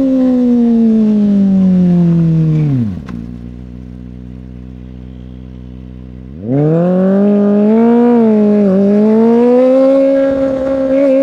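Kawasaki ZX-25R's 250 cc inline-four through an iStunt aftermarket exhaust. The engine note falls steadily for about three seconds and drops to a quieter idle. A few seconds later it rises sharply, dips briefly, then climbs again and holds at a steady high engine speed.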